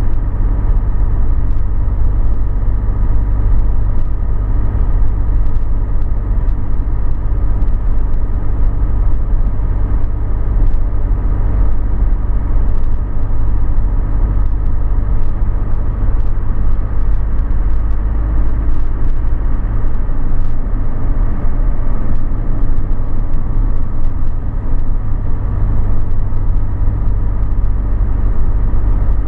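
Vehicle driving along a sealed road: a steady, loud low rumble of engine and tyre noise.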